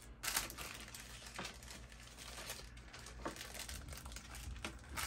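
Thin plastic bags and packaging crinkling and rustling as they are handled, in short irregular bouts.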